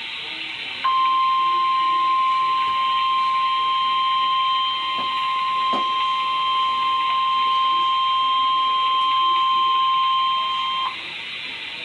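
Weather-radio warning alarm tone for a severe thunderstorm warning: one steady tone of about 1050 Hz starts about a second in, holds for about ten seconds and cuts off, over steady radio hiss. The tone signals that a warning message follows.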